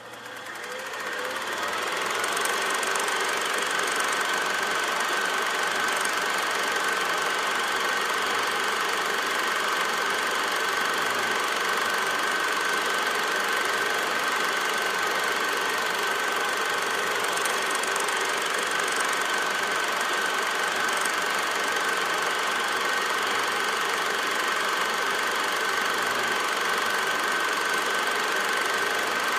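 A small machine running steadily, an even mechanical whirr with a constant high whine, fading in over the first two seconds.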